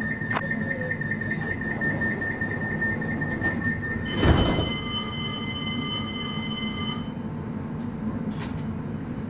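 A CAF tram's door-warning beeper sounds rapidly until the doors close with a loud thump about four seconds in. The tram then moves off with a steady high-pitched electric whine from its traction equipment that fades out about three seconds later, over a constant low rumble.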